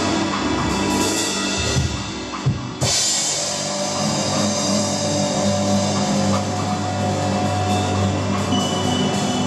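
Live rock band playing: a drum kit under loud, held droning tones from keyboards and other instruments. About two seconds in the sound thins to a few drum hits, then the full band comes back in just before the three-second mark.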